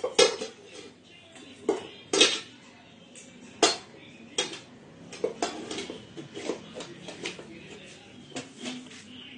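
Stainless steel pots and bowls clanking irregularly as a small child handles them: a few loud metallic clanks in the first four seconds, then a run of lighter, quicker knocks.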